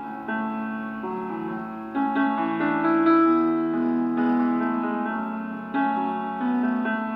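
Background piano music: notes and chords struck and left to ring.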